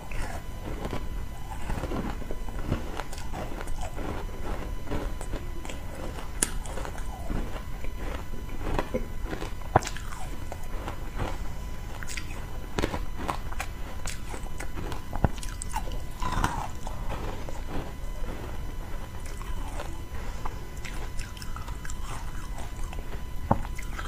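Crunching and chewing of a chunk of frozen matcha tea ice, close to a clip-on microphone: irregular crackling crunches throughout, with a few sharper cracks.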